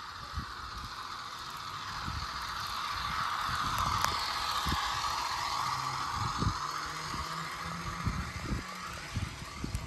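Motor-and-gear whir of an HO scale EMD NW2 model diesel switcher running on the track, swelling as it passes close about four seconds in and fading as it moves away. Scattered low thumps sound throughout.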